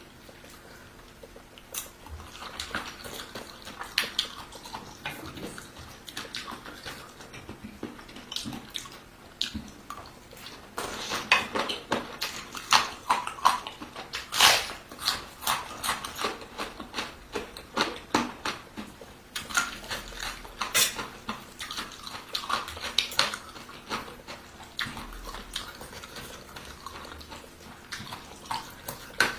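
Close-up eating sounds: wet chewing, smacking and slurping of rice noodles in curry sauce, with frequent short clicks, denser after about ten seconds.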